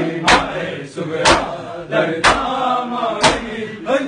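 Matam: a group of men striking their bare chests with open palms in unison, one loud slap about every second, four in all, with a chanted mourning lament from many male voices between the slaps.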